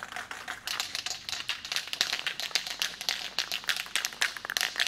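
Aerosol can of etch primer being shaken, its mixing ball rattling in quick, irregular clicks.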